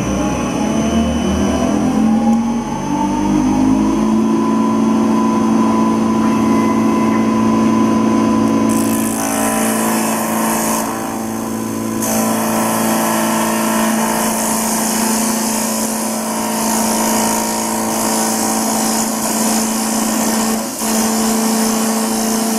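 CNC wood lathe running: its motors whine up in pitch over the first few seconds and then hold a steady hum. About nine seconds in a hiss joins as the cutter works the spinning wooden blank.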